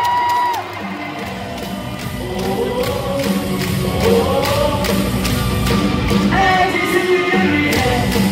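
Music with singing in a basketball arena, with a crowd, swelling from about two seconds in over a regular beat. A brief steady tone ends just after the start.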